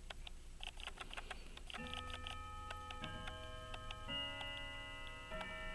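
Light, irregular clicks and taps of small tools on brass watch parts during reassembly of a pocket watch movement. From about two seconds in these are joined by faint held tones that move to new chords every second or so, like soft background music.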